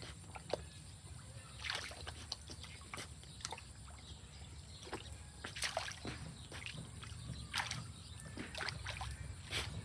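A dog wading in a shallow muddy puddle, its paws and snout splashing and sloshing the water in irregular bursts every second or two as it hunts for fish.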